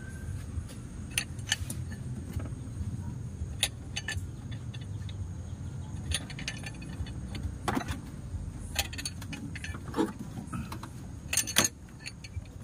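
Metal hand tools clicking and clinking against the engine's cylinder head as a long-handled injector sleeve tool is worked, in scattered light knocks with a louder cluster near the end, over a low steady hum.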